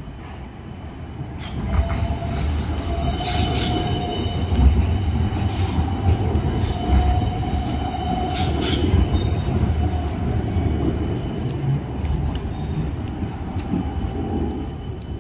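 Coupled Siemens Combino trams running on rails: a heavy steady rumble that swells about two seconds in, with a thin tone coming and going above it and a few sharp clacks over the track.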